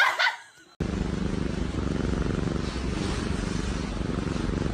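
A brief voice right at the start, then from about a second in, a cat purring: a steady, rough, rapidly pulsing rumble that goes on without a break.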